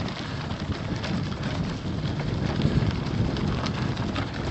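Rough, crackling noise with uneven low buffeting, typical of wind on the microphone and ground noise while moving quickly along a dirt driveway.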